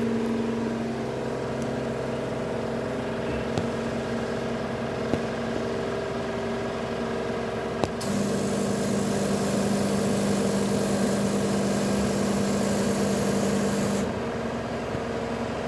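Melag Vacuclav 31B steam autoclave running with a steady mechanical hum. About eight seconds in a click sounds and a loud hiss starts over a deeper hum, lasting about six seconds before cutting off suddenly.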